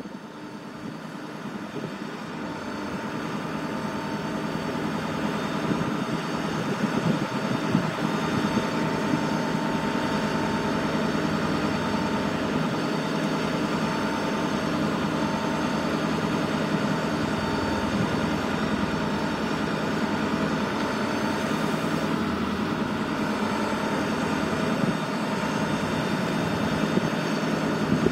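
Ford F550 bucket truck's engine running steadily while the Altec boom's hydraulics raise and extend the bucket: an even drone with a faint steady whine above it. It swells up over the first few seconds, then holds level.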